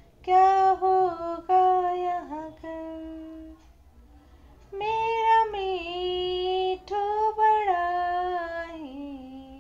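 A woman's voice singing unaccompanied, long held notes in short phrases, with a pause of about a second in the middle.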